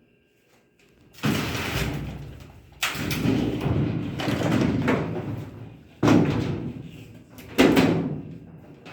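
Brastemp Ative 11 kg washing machine being tipped and shifted on the floor: four heavy knocks, each followed by a second or so of scraping and rumbling that dies away.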